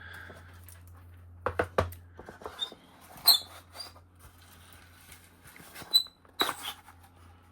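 Wooden watchmaker's parts boxes being handled: a few sharp knocks and clicks and two or three short, high squeaks, over a low steady hum.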